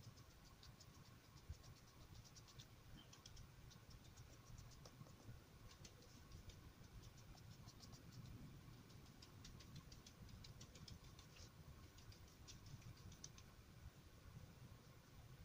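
Faint, quick soft ticks of a filbert paintbrush dabbing watery acrylic paint onto wet printer paper, coming in irregular runs, over a low room hum.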